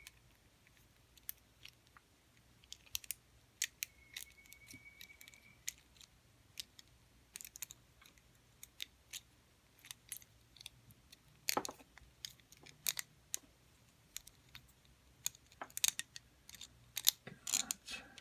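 Homemade metal pick working inside a lever lock: irregular small metal clicks and taps as the tool probes the wards and levers, coming faster near the end, with a brief thin squeak of metal sliding on metal about four seconds in.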